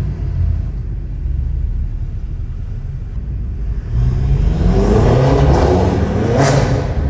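BMW F10 M5 Competition's twin-turbo V8 running at low revs, then accelerating hard from about four seconds in, its note rising steadily in pitch. A short sharp crack near the end.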